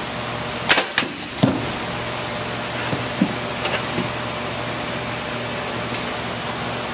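Steady hiss of background noise, broken by a quick cluster of sharp knocks and clacks about a second in, then a few lighter knocks, as a corrugated cardboard wine shipper is handled and set on the metal arm of a package drop tester.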